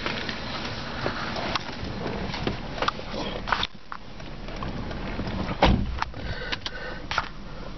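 Cabin sound of a 2001 Nissan Pathfinder with its 3.5-litre V6 idling as a steady low hum, with scattered clicks and knocks and one louder thump about five and a half seconds in.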